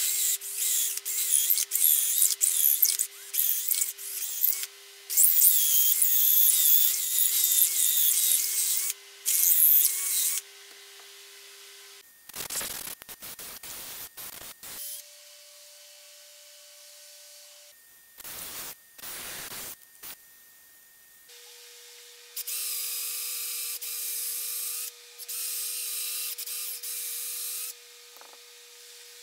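Cordless drill boring into the end of a wooden tool handle, run in many short trigger bursts with a high whine that wavers in pitch. A few shorter rasping noises come in the middle, and the drilling bursts return near the end.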